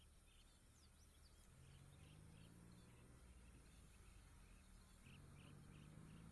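Faint, short chirping calls repeated irregularly from a flock of tricoloured munias, with a couple of thin falling whistles about a second in, over a low steady hum.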